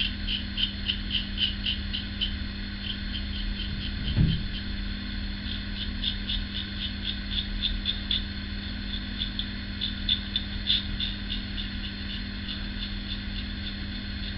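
Single-edge safety razor (Ever Ready 1924 with a GEM blade) scraping through lathered stubble against the grain in short strokes: a run of crisp rasping ticks, a few a second, with a pause in the middle. A steady low hum runs underneath.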